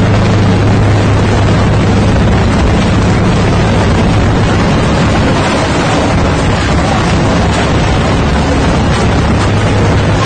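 Loud, steady engine rumble of heavy equipment, with a low hum that fades about four seconds in, mixed with wind buffeting the microphone.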